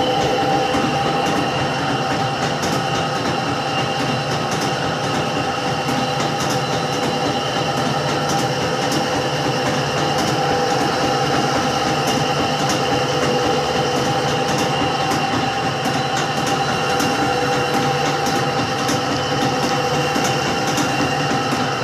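Electrolux Turbo Limpeza top-loading washing machine in its spin cycle: a steady motor and drum whine with frequent irregular clicks and knocks. The knocks are the tub banging against the sides of the cabinet; the repairman puts this down to the tub hanging to one side because its suspension springs are not holding it centred.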